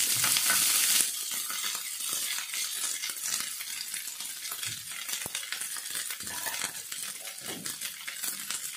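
Chopped cabbage, carrot and capsicum sizzling in hot oil in a frying pan as handfuls are dropped in. The sizzle is loudest for about the first second, then settles into a softer sizzle with small crackles.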